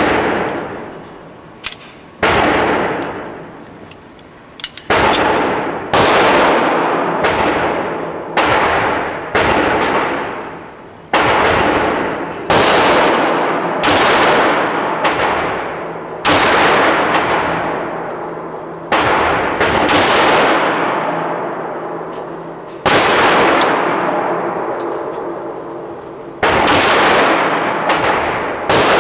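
9mm pistol shots in slow, steady fire, about twenty rounds with a shot every one to two seconds. Each crack rings out in a long reverberating tail.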